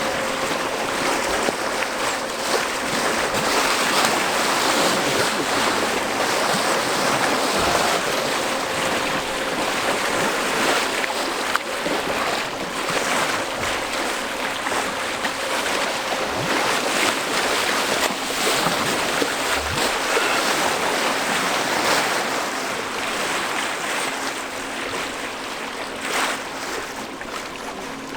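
Wind rushing over the microphone and water churning along the hull of a cruise boat, with a faint steady hum from the boat underneath.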